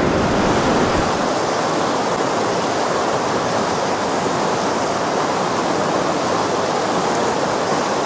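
Rushing water of a mountain stream: a steady, loud rush of moving water.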